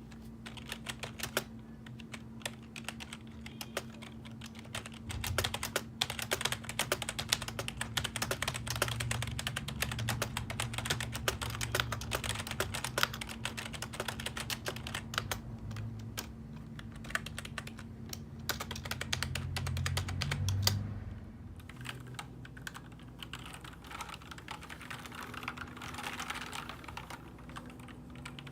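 Continuous fast typing on a computer keyboard: a dense, irregular stream of key clicks that thins briefly about two-thirds of the way through, then picks up again. A faint steady low hum runs underneath.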